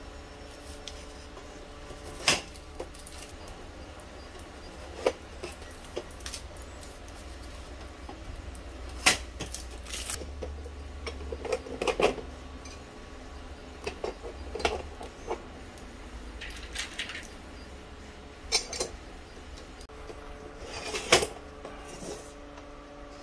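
Aluminium extrusion frame pieces and sheet panels being handled and slotted together: scattered clicks, knocks and light metallic clinks, the loudest about two, nine, twelve and twenty-one seconds in, over a faint steady hum.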